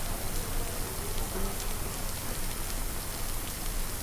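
A steady hiss of rain-like noise with faint, scattered ticks.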